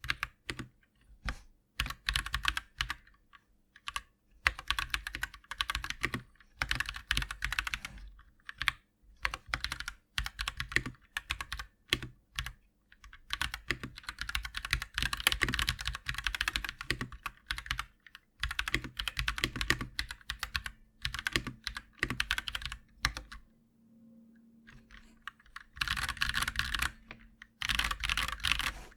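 Typing on a KT87 mechanical keyboard with FL.CMMK Pink switches: runs of quick key clicks in bursts separated by short pauses, with a longer lull of about two seconds before a final burst near the end.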